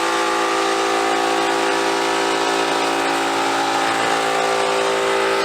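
A motor running steadily at one unchanging pitch, a constant mechanical hum with no change in speed.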